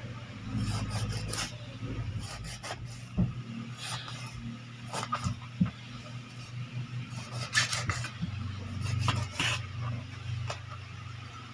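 Kitchen knife scoring the skin and flesh of a whole pompano on a wooden cutting board: irregular rasping strokes of the blade with a few sharper knocks against the board. A steady low hum runs underneath.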